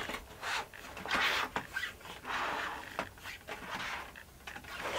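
A cardboard game box being handled and turned in the hands: rubbing and rustling against skin, with several light knocks and clicks.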